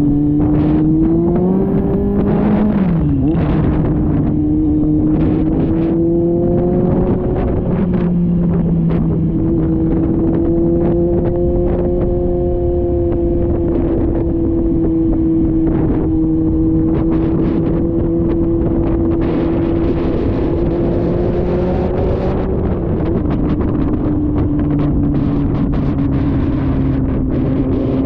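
Motorcycle engine running at road speed, its pitch climbing briefly, dropping sharply about three seconds in, then holding fairly steady, under heavy wind buffeting on a GoPro Hero 9's microphone.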